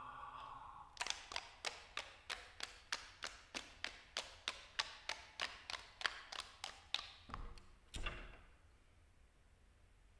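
Sharp, dry percussive taps in a steady pulse of about four a second, played by the seated ensemble, ending in two low, heavy thuds near the end. A faint held tone fades out in the first second.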